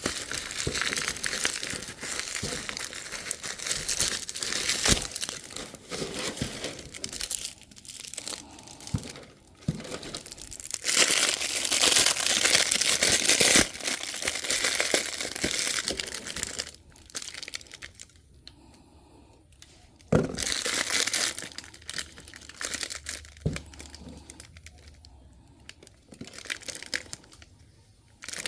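Packaging being handled while unboxing: irregular crinkling, crumpling and tearing, with scattered small knocks. It is loudest near the middle, goes quiet for a couple of seconds, then starts again.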